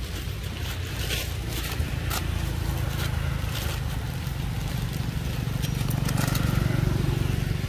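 A low, steady rumble that swells near the end, with scattered crackles of dry leaf litter as macaques walk and pick up fruit.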